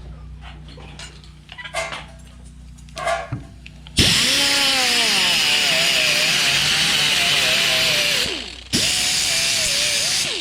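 Handheld power grinder working sheet-metal fender edges back to bare metal and taking off burrs. It starts loud about four seconds in, its whine dipping and wavering as it bears on the metal. It stops briefly and starts again near the end, after a few light handling clicks at the start.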